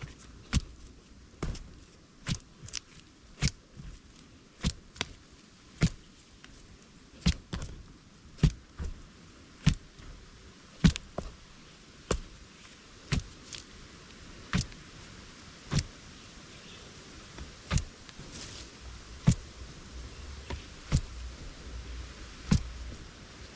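Repeated sharp strikes, roughly one a second, from a sharpened wooden stick being driven into the ground to dig out yam.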